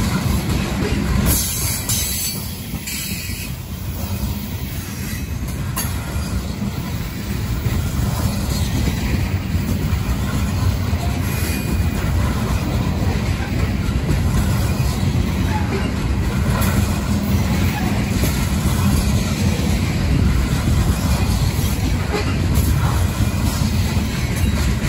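Aluminum coal gondolas of a freight train rolling past: a steady low rumble of steel wheels on rail, with occasional clacks as the trucks pass over the rail joints.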